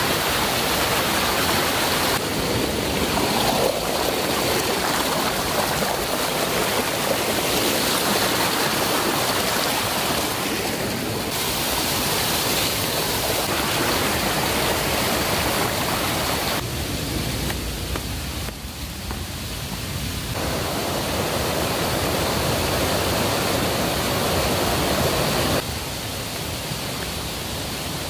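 Shallow rocky river rushing over boulders and small rapids: a steady water noise that shifts abruptly in level and tone several times, dropping a little near the end.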